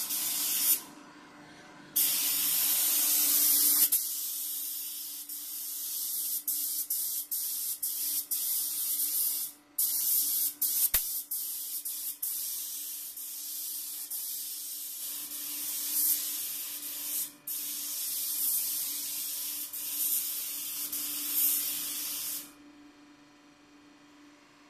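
DeVilbiss GTi Pro compressed-air spray gun hissing as it sprays 2-pack base coat. The gun is triggered in long passes with a few short breaks and stops about 22 seconds in.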